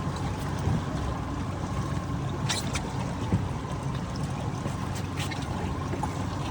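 Fishing boat's engine running with a steady low rumble, water splashing against the hull, and two short clicks about two and a half and five seconds in.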